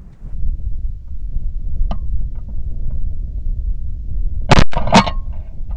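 Steady low rumble, then two shotgun shots about half a second apart near the end.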